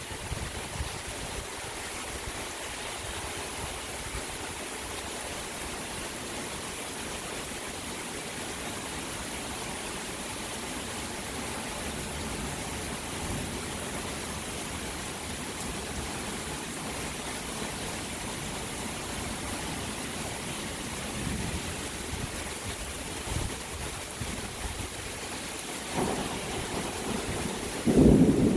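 Steady rain falling during a thunderstorm. Near the end a low rumble of thunder comes in and grows loud.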